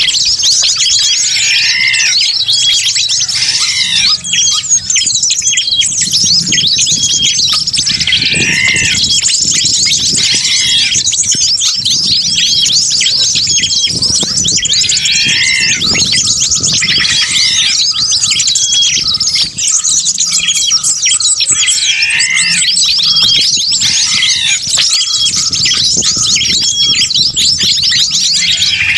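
Bird-lure recording of many small wild birds calling at once: a dense, continuous mass of fast, high chirps and trills, with a lower arching call repeating about every two seconds.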